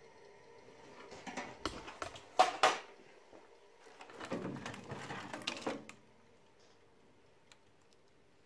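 The sliced-open metal casing and loose innards of a DVD player clatter and knock as it is handled and laid on the steel table of a wet tile saw. There are two spells of rattling, the loudest knocks about two and a half seconds in. A faint hum dies away in the first second.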